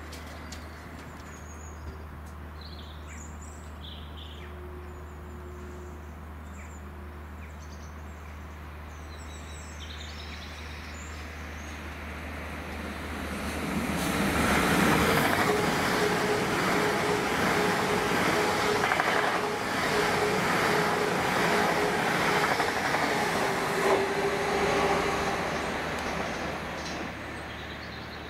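Birds chirping over a low steady hum, then a Great Western Railway Class 800 train approaching and passing. Its wheel and engine noise builds from about twelve seconds in, stays loud with a steady whine for about ten seconds, then fades near the end.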